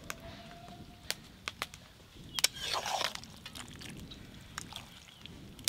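Metal ladle stirring a thick curry in an aluminium pot: a handful of light clinks against the pot, with a short stirring scrape near the middle.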